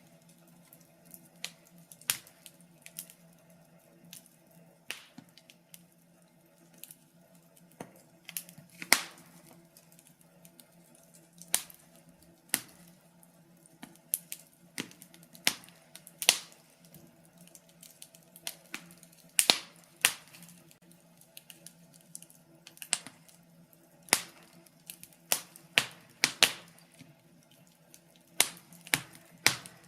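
Wood fire crackling in a fireplace: irregular sharp pops and snaps, a handful of louder ones standing out among many small ticks, over a faint steady low hum.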